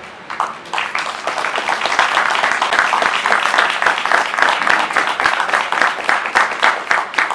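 A small crowd applauding. The clapping starts about half a second in, builds over the next second or so, and then stays dense and steady.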